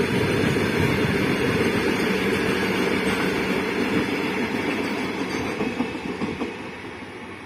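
Goods train of covered wagons rolling past on the rails, a dense rumble of wheels with some clickety-clack. The sound fades from about five seconds in as the end of the train draws away.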